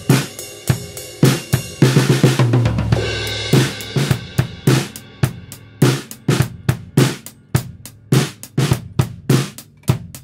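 Acoustic drum kit playing a steady groove of kick, snare, hi-hat and cymbals, recorded through a spaced pair of overhead microphones, with a cymbal crash about two seconds in. The snare and kick are panned to the centre while the cymbals and hi-hat keep their original stereo positions.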